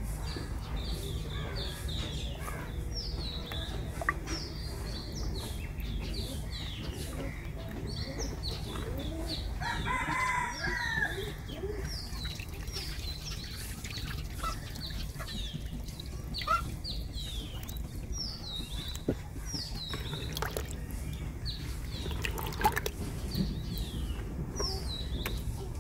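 Chickens calling: many short, high, falling chirps throughout, with one longer crowing call about ten seconds in, over a steady low rumble.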